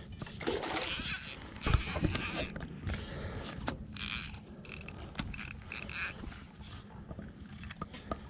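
Fishing reel being cranked in bursts, its gears whirring and clicking, as a hooked catfish is reeled in.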